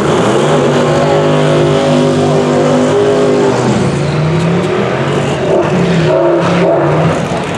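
Twin-turbo big-block Chevy V8 of a drag-race Mazda RX7 doing a burnout: the engine is held at steady high revs while the rear tyres spin and smoke. After about three and a half seconds the revs drop, and the engine is blipped unevenly as the car rolls forward.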